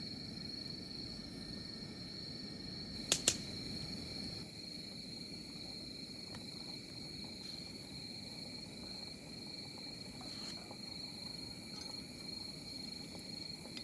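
Night insects, crickets, trilling steadily in a high, even drone, with two sharp clicks about three seconds in.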